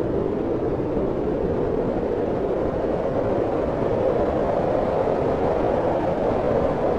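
Steady, deep wind noise, the rushing centred low and without gusts or breaks.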